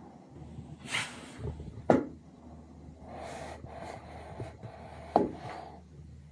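Inside a moving gondola cabin: a low steady hum with two sharp knocks, about three seconds apart, and a few brief rustling whooshes.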